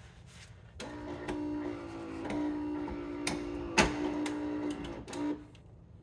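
Gaggia Magenta Plus automatic coffee machine running its start-up rinse: the machine's pump comes on about a second in with a steady hum and stops near the end, with a single click in the middle.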